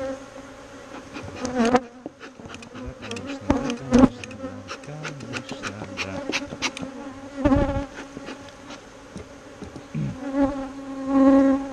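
Honeybees buzzing in a steady swarm around an opened hive, agitated and defensive, with louder buzzes as single bees pass close twice near the end. Sharp clicks and knocks of hive frames being handled come through the first half.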